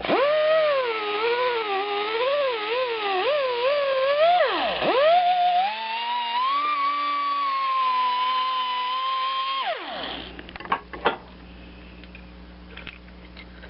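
90-degree die grinder with a roll-lock flap wheel grinding a burr off a steel idler shaft: a high whine whose pitch wavers as the wheel is pressed on the metal, dips and spins back up about five seconds in, then runs higher and steadier before winding down near ten seconds. A few light clicks follow.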